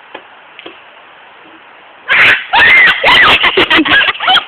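Young girls screaming and shrieking, very loud and high-pitched, breaking out about halfway in after a couple of faint clicks.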